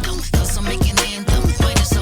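Hip-hop intro beat with a heavy bass line and a kick drum about twice a second.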